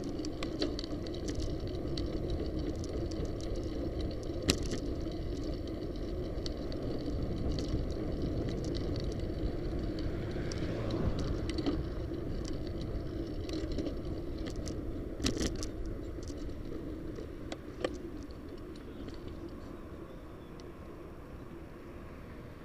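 A bicycle riding on pavement: steady tyre and wind noise with sharp rattles and clicks now and then as it goes over bumps, growing quieter near the end.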